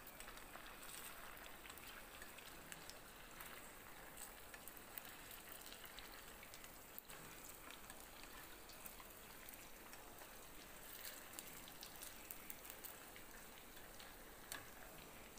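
Meatballs frying in a pan of cooking oil: a faint, steady sizzle with scattered crackles and pops.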